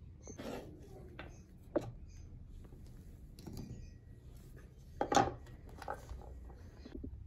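Kitchen food-prep handling: scattered short clicks and taps of a knife and a wooden cutting board, with a sharp tap just under two seconds in and a louder cluster of knocks and rustle about five seconds in as raw chicken breast is set down on a wicker tray.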